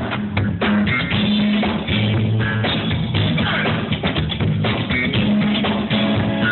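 Live band playing, with a drum kit beating steadily under guitar and held low bass notes.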